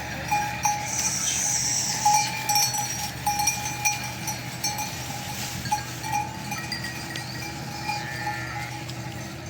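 Bells worn by a flock of sheep clinking irregularly as the animals move about, over a steady low drone.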